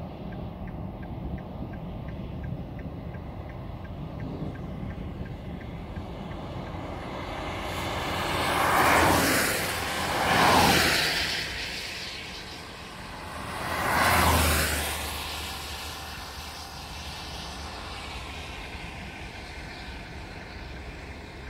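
Steady road noise from inside a moving car on wet asphalt, with three oncoming vehicles swishing past on the wet road at about nine, ten and a half and fourteen seconds in, each swelling loud and falling away.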